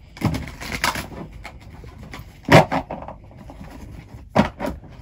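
A few sharp, irregular knocks and handling noises, the loudest about two and a half seconds in.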